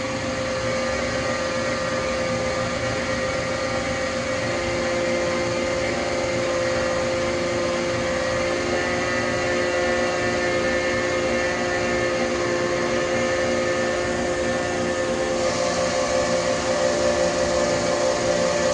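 Danfoss H1P045 axial-piston hydraulic pump running on an electric-motor-driven test stand after repair, a steady mechanical whine over a broad hum. A second lower tone joins a few seconds in, and the sound grows slightly louder and brighter near the end.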